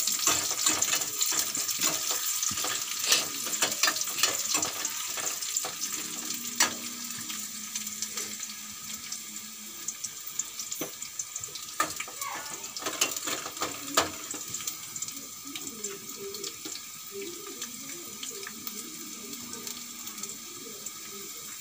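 Sliced onions, curry leaves and whole spices sizzling in sesame oil in a steel kadai: a steady hiss with a stream of small crackles, busier for the first six seconds or so and then settling. This is the tempering being fried until the onions turn golden brown.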